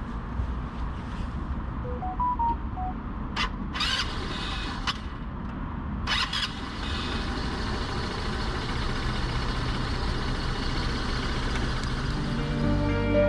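Vento Max 200 scooter engine idling steadily, its starter freshly cleaned and greased. A few short beeps come about two seconds in, and several sharp knocks follow between about three and six seconds in.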